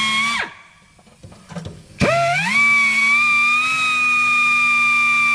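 Handheld power grinder whining at full speed, switched off about half a second in so its pitch falls away, then started again about two seconds in, its whine rising to speed and running steadily.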